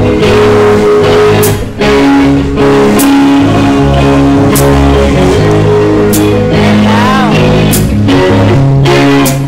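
A heavy metal band playing live and loud: electric guitar and bass riffing over drums, with cymbal crashes about every second and a half. About two-thirds of the way through, one high note bends up and back down.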